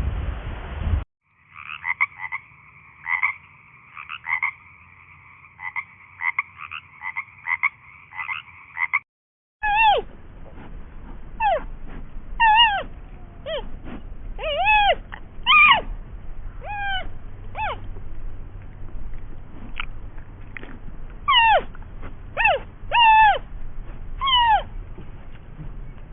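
Animal calls: first a fast run of short croaking calls repeated about twice a second, then, after a brief break, a series of short high calls, each falling in pitch.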